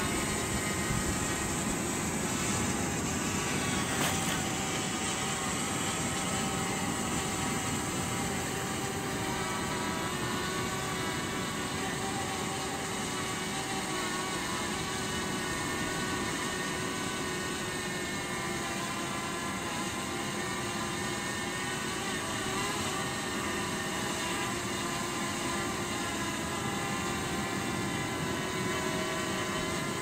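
Small quadcopter drone (DJI Mavic Mini) hovering close by, its propellers giving a steady buzzing whine of several tones that waver slightly in pitch as it holds position and turns.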